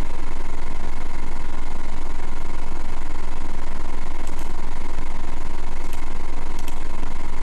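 A steady, loud low hum under a noisy hiss, with three faint clicks in the second half.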